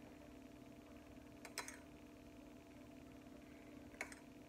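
Metal spoon clinking against a stainless steel saucepan twice, about a second and a half in and again near the end, while gravy is ladled out. A faint steady hum lies underneath.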